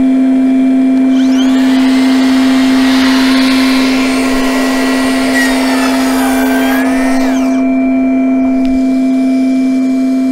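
Makita cordless dust extractor running with a strong, steady hum. Over it, a Makita DLS714NZ cordless slide miter saw spins up with a rising whine about a second in, cuts through a wooden board, and stops about seven and a half seconds in.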